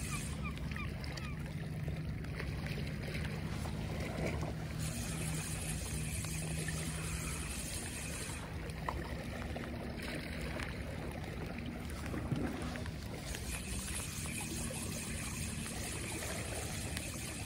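Distant boat engine humming steadily over lapping sea water and wind, the hum fading about halfway through and returning.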